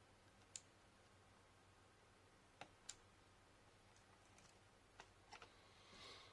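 Near silence, broken by a few faint, sharp clicks of small laptop parts being handled during reassembly, with a soft brushing noise near the end.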